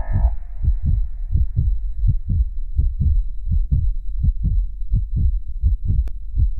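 Background music reduced to a steady, deep bass thump, about three beats a second, as the synth melody fades out in the first half second.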